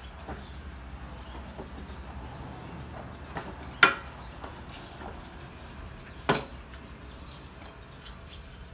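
Two sharp knocks, about two and a half seconds apart, over a low steady hum.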